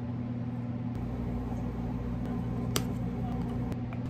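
Steady low hum of a small electric motor, with a few light clicks and one sharper click about two-thirds of the way through.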